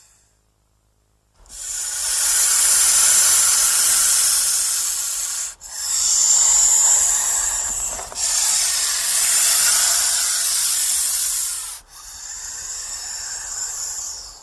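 Snake hissing: four long, airy hisses of about three seconds each, one straight after another, starting about a second and a half in.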